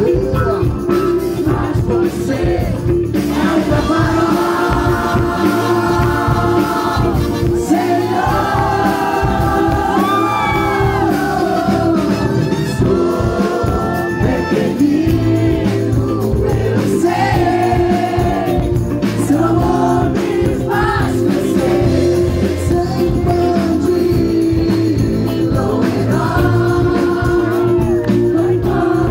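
Live band performing a Brazilian Christian pop song: a male lead singer through the PA over drums, electric guitar and keyboard, loud and continuous.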